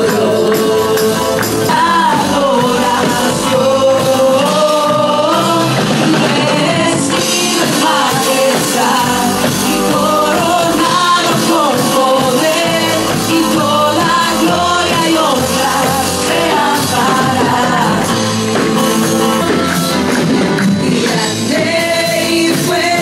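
Live church worship band playing an upbeat song on drum kit, guitar and keyboard, with a sung melody over it.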